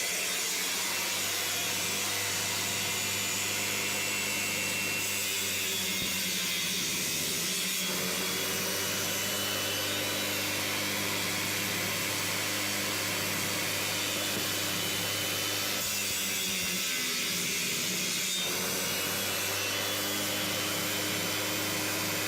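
Circular saw mounted upside down under a board as a table saw, running steadily at full speed. Twice, about six and sixteen seconds in, its pitch sags under load as the blade cuts a shallow groove partway into a board, then climbs back.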